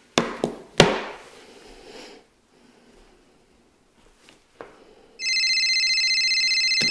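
A smartphone rings with a steady electronic ringtone that starts about five seconds in. Before it, two sharp knocks as the phone is set down on a wooden desk.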